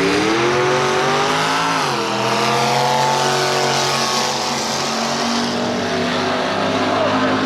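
Drag-racing engine at full throttle, revs climbing, then dropping sharply about two seconds in at a gear change before pulling steadily again.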